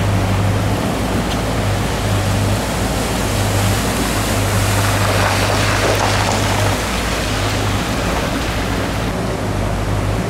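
Muddy floodwater rushing across a street while cars drive through it, with a steady low hum underneath that cuts in and out and fades after about seven seconds.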